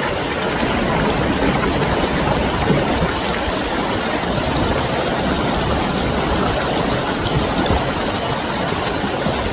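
Stream water rushing steadily, a dense even noise.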